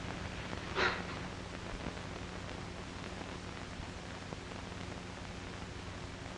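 Steady hiss and low hum of a 1930s film soundtrack, with one brief soft noise about a second in.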